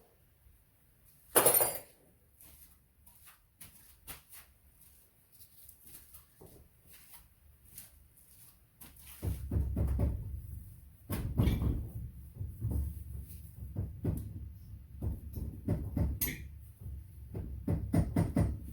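Knocks and clunks of metal engine parts and hand tools being handled during an ATV engine teardown. A single loud clunk comes about a second and a half in, then faint scattered clicks. In the second half comes a long run of irregular low knocks and scrapes.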